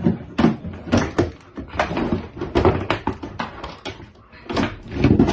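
Kitchen clatter as rice is put into a pot of cooked beans: a run of irregular knocks and clatters, several a second.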